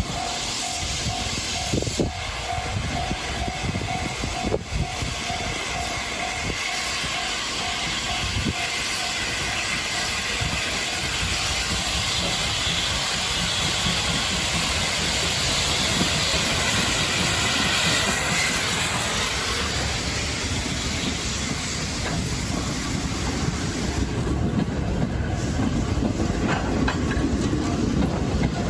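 Steam locomotive passing a level crossing at close range: a steady hiss of steam over the rumble and clatter of wheels on the rails, heavier near the end. A level-crossing bell rings in a steady repeating pattern for the first several seconds.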